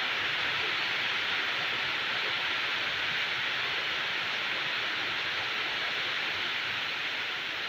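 Rain falling steadily, an even hiss with no single drops standing out.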